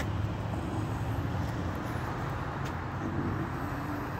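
Steady low rumble of outdoor background noise, like road traffic or wind on a phone microphone, with a few faint clicks.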